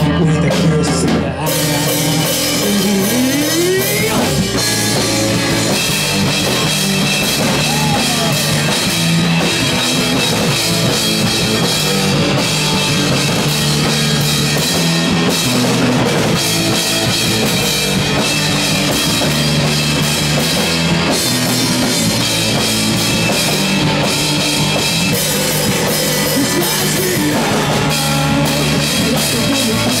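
Live rock band playing loud, with electric guitar over a drum kit. The full band comes in about a second and a half in.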